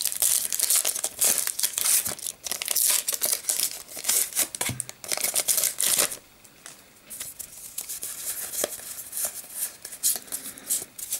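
Foil wrapper of a Pokémon TCG booster pack being torn open and crinkled, a dense crackling for about six seconds, then quieter, scattered crinkling.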